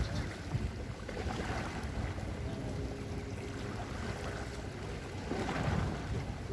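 Seaside ambience: wind rumbling on the microphone over the wash of sea waves, with a brief swell near the end.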